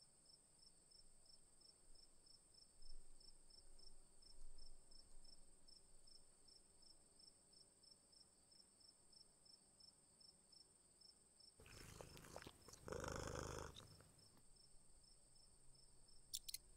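Faint insect chorus typical of crickets: a steady high-pitched buzz with a fast, evenly pulsed chirp. About twelve seconds in, a louder unidentified sound lasts about two seconds, and a few sharp clicks come near the end.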